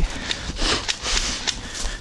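Rustling noise in short bursts, with a few sharp clicks about half a second apart.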